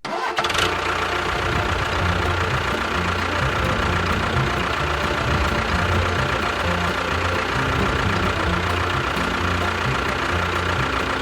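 Small motor of a miniature DIY construction machine running steadily with an uneven knocking chug and a constant whine, starting abruptly after a cut.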